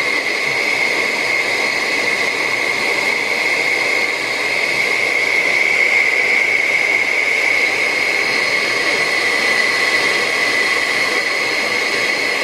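Hot-air plastic welder gun blowing steadily: an even rush of air with a steady high whine from its fan.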